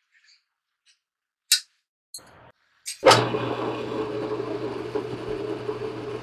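A sharp clink and a brief scrape, then a click about three seconds in as a homemade lathe is switched on: its motor and spindle start and run with a steady hum and whir while the three-jaw chuck spins.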